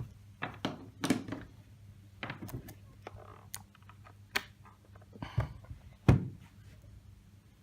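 Scattered clicks, taps and a few heavier thunks from handling the plastic alarm clock and plugging in its power adapter cable. The loudest knocks come about a second in and again around five and a half and six seconds in.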